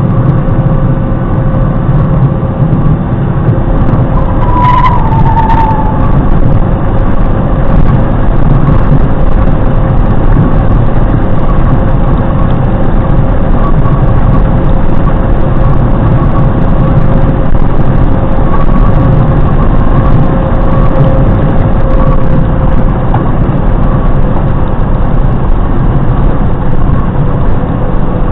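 Steady low rumble of a vehicle on the move, with one short blast from a canned air horn about five seconds in that dips slightly in pitch.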